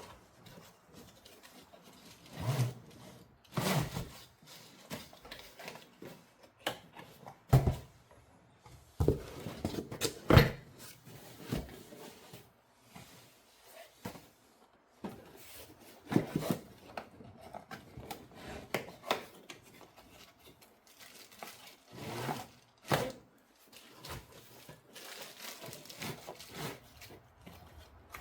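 Packaging of a photography light kit being handled and opened: rustling and tearing of wrapping, with irregular knocks and clatters of parts, the loudest about seven and ten seconds in.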